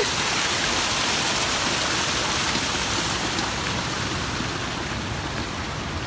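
Small waterfall cascading over rocks, a steady rush of water that grows a little fainter toward the end.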